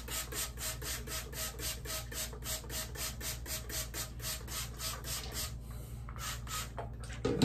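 Hairbrush raked quickly through thick, curly hair: short, even rasping strokes about four or five a second, with a brief pause near the end before a few more strokes.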